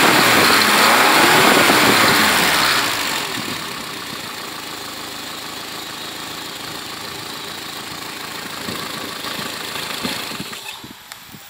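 Freshly rebuilt 904 cc Renault four-cylinder, built as a Dauphine 1093 replica with a reground camshaft, domed pistons and a modified cylinder head, running on its first start. It is revved up and down for about three seconds, settles to a steady idle, and is shut off near the end.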